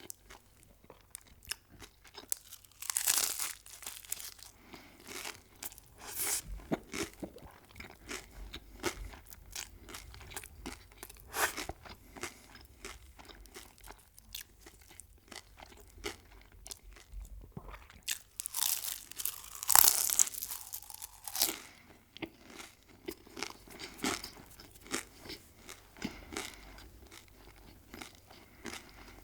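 Close-miked eating: crunchy food bitten and chewed, with a steady run of small crackly crunches. There are louder crunchy bites about three seconds in and again around twenty seconds in.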